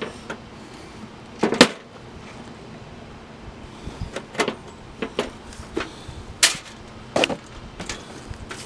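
Latches and lid of a Coleman Classic two-burner propane camp stove's case being worked open: a series of sharp clicks and knocks, the loudest about a second and a half in, with several more spread through the rest.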